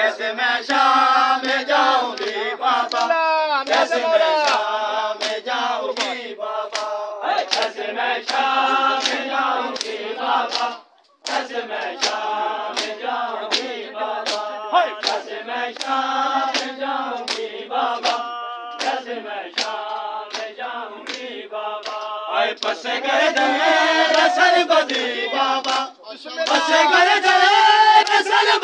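A crowd of men chanting a noha in unison, with a steady beat of open-handed slaps on bare chests (matam) about twice a second. The sound cuts out briefly about eleven seconds in.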